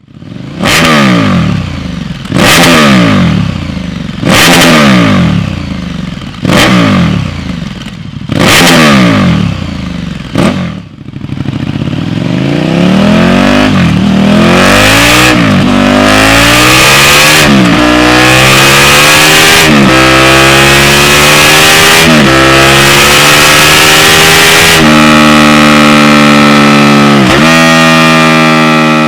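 KTM 1290 Super Duke R's V-twin through an SC Project S1 slip-on exhaust: five sharp revs about two seconds apart, then the bike accelerating hard through several upshifts, the pitch climbing and dropping back at each gear change.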